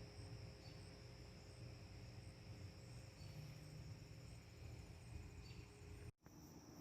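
Faint backyard ambience: wind rumbling on the microphone under a steady high trill, with a few short faint chirps. The sound cuts out for a moment about six seconds in.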